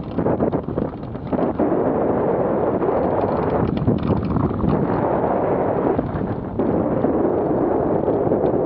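Wind rushing and buffeting over the microphone of a wing-mounted camera on a hang glider in flight: a loud, steady rush that surges and eases in gusts, easing about a second in and again near six seconds.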